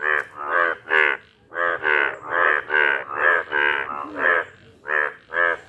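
Breeding male Indian bullfrog calling, with its blue vocal sacs puffed out: a fast series of short croaks, about three a second, in runs broken by brief pauses about a second in and again after about four seconds.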